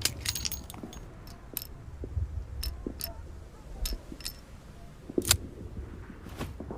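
Smith & Wesson Model 3 revolver being handled: a series of sharp metallic clicks and light rattles, irregularly spaced, the loudest about five seconds in.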